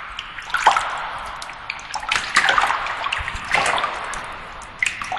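Running, splashing water that swells in several surges about every second and a half.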